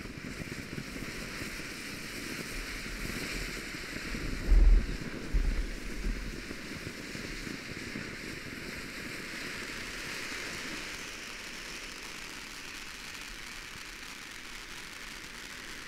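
Fountain firework spraying sparks: a steady, rain-like hiss. Two dull low thumps come about four and a half and five and a half seconds in.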